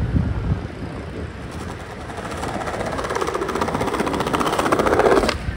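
A passing vehicle running with a fast, even pulsing, growing louder and then cutting off suddenly near the end.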